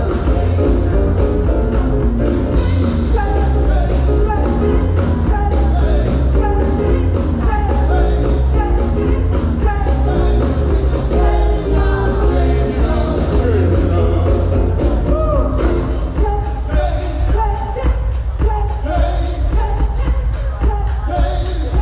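A choir and backing band performing live: voices singing a melody over a steady drum beat and heavy bass.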